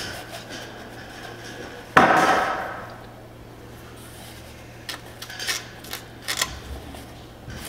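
Metal clang about two seconds in that rings on for roughly a second, then a few short metallic clicks and taps near the end. These are hand tools and metal parts knocking against each other while a power steering pump's mounting bracket is worked into line.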